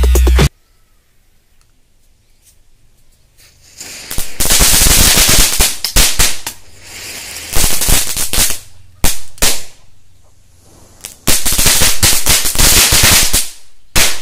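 Small firecrackers fixed to a fidget spinner going off: loud bursts of hissing and rapid crackling pops, three or four bursts with quieter gaps between them, after a few seconds of near quiet.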